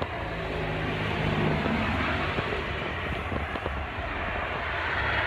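Street traffic: a car driving by, a steady wash of engine and tyre noise that grows louder about a second in.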